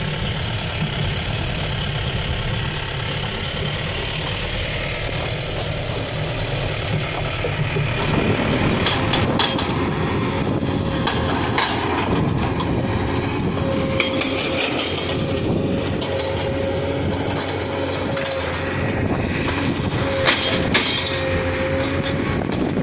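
Mahindra Bolero 4x4's engine running steadily as it drives over a rough dirt track, heard from inside the cab. About eight seconds in, the sound changes abruptly to a tracked excavator running, with a wavering whine and scattered clanks and knocks.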